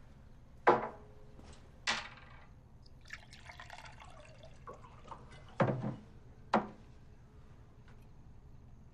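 Four sharp knocks, the first with a short ringing tone, and a stretch of splashing water between the second and third.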